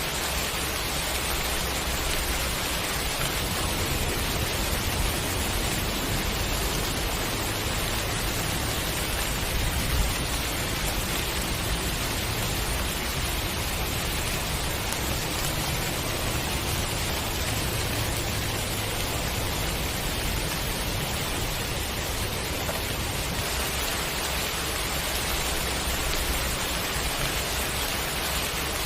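Heavy rain falling steadily, a dense even hiss, with a low rumble underneath through much of it.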